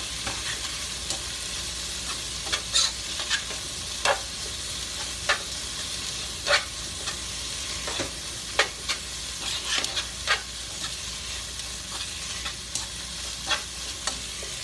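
Chopped onions frying in butter in a pot: a steady sizzle, with sharp clicks of the stirring utensil against the pot at irregular intervals, every second or so. The onions are just starting to turn golden.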